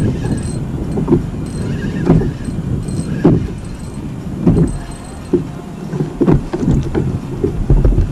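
Wind rumbling on the microphone and water slapping against a plastic fishing kayak, with irregular low thumps and knocks every half second to a second as the kayak rocks on the chop.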